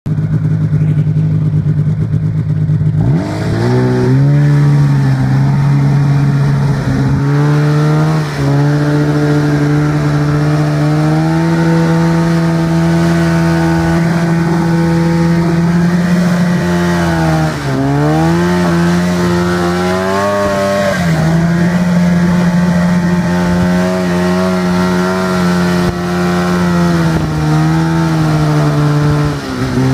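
Snowmobile engine from the rider's seat, running loud and steady under way. It revs up about three seconds in, eases off briefly and climbs again a little past halfway, and dips once more near the end.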